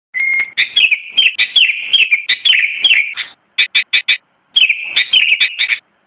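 Sooty-headed bulbul singing: bursts of quick, clear whistled notes, many falling in pitch, opening on a short held note. About halfway through comes a run of four short separate notes, then another quick phrase.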